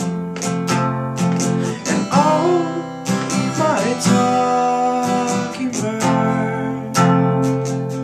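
Cutaway acoustic guitar strummed in a steady rhythm of chords, with sharp strokes several times a second over ringing strings.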